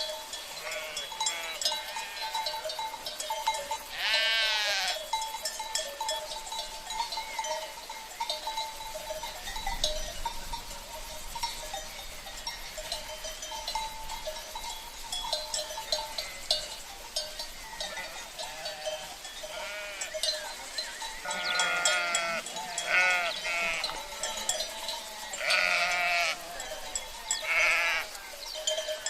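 Sheep bleating over the clinking and ringing of livestock bells (cencerros). One long quavering bleat comes about four seconds in, and several more bleats come close together near the end.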